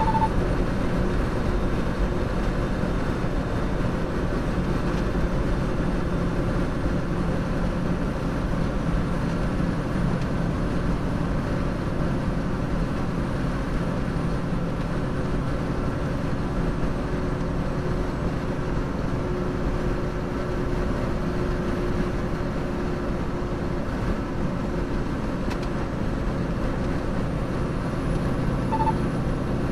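Semi truck's diesel engine and tyre noise heard from inside the cab, a steady drone at highway speed. A short electronic beep sounds at the start and again near the end.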